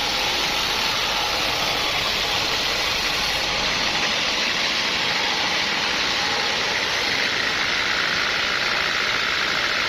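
Sawmill machinery running steadily with a constant mechanical noise, shifting slightly in tone about four seconds in.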